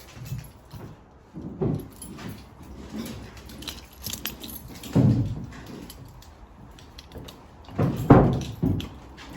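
Irregular dull thumps and knocks with small sharp clicks and clinks, the loudest about five seconds in and again about eight seconds in.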